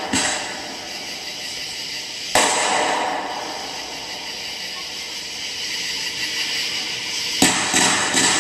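Fireworks going off: three sharp bangs, one just after the start, one about two and a half seconds in and one near the end, over a steady hiss.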